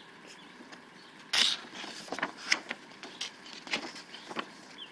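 Paper pages of an instruction manual being turned and handled: a rustle about a second and a half in, then a scatter of short, crisp crackles.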